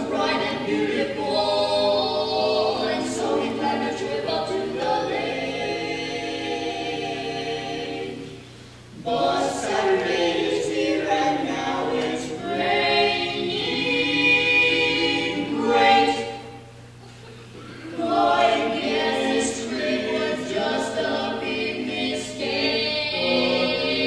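Barbershop quartet of a man and three boys singing a cappella in four-part close harmony, in phrases with two short pauses between them.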